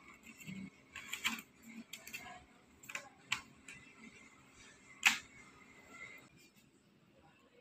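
A handful of sharp clicks and taps from a laptop's case being handled on a wooden table, the loudest about five seconds in.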